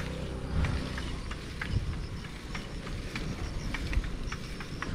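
Wind and rolling noise on an action camera riding along on a bicycle: a steady low rumble with scattered light clicks and ticks from the bike over the paved lane.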